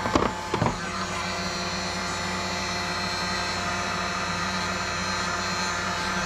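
Electric heat gun running steadily, its fan blowing with a constant motor hum; its owner says it sounds like it is about to give out. A few light knocks in the first second.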